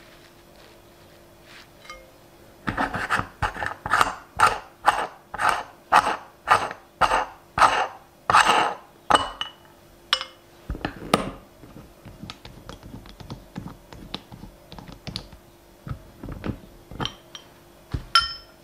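Hand-operated metal meat grinder pushing sticky marshmallow through its cutting plate, making rhythmic scraping strokes about two a second. After several seconds these give way to scattered quieter clicks and squelches, with a louder knock a couple of seconds later and a few sharp ticks near the end.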